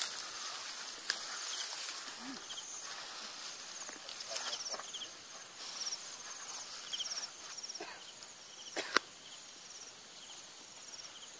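Insects chirping in short high trills that repeat every second or so, over footsteps through grass, with one sharp click about nine seconds in.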